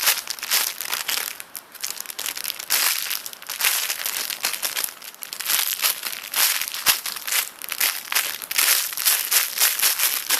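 Crinkling and rustling close to the microphone as a foam donut squishy toy is handled and squeezed, with many small crackles throughout.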